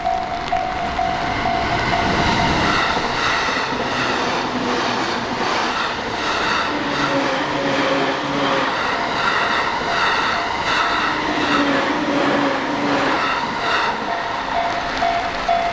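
Electric train passing over a railway level crossing, its wheel and motor noise with shifting whining tones filling most of the time. The crossing's alarm bell rings steadily at the start, is drowned out while the train goes by, and is heard again near the end.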